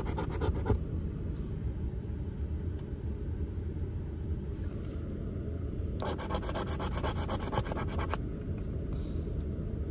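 A coin scratching the coating off a lottery scratch-off ticket in quick back-and-forth strokes, briefly at the start and again for about two seconds from about six seconds in, over a steady low rumble.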